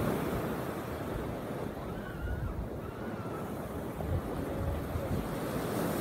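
Small sea waves breaking and washing up onto a sandy beach, with wind gusting on the microphone.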